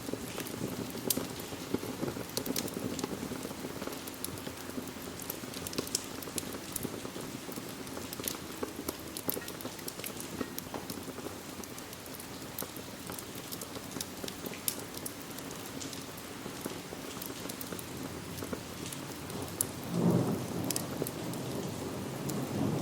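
Steady rain mixed with the sharp crackles of a wood fire in a fireplace. A brief low rumble comes near the end.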